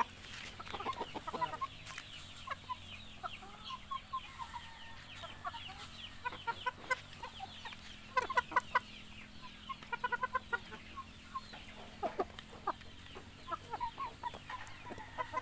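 Native chickens clucking while feeding, short calls in quick runs, as they peck black soldier fly larvae from a stone bowl, with occasional sharp pecking taps.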